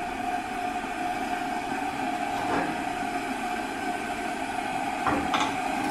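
Steady hiss and rumble of a lit gas burner on a two-burner tabletop stove. A frying pan knocks twice on the metal grate as it is set down, about five seconds in.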